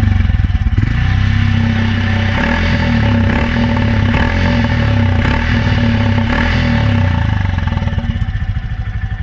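Motorcycle engine running steadily at a fast idle, its exhaust beating rapidly out of the silencer.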